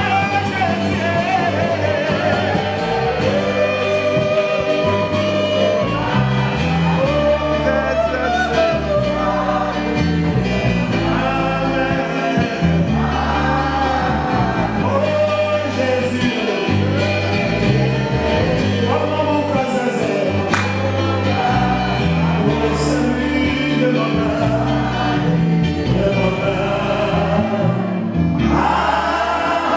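Man singing a gospel worship song through a microphone and PA, over a live band with a moving bass line, other voices singing with him.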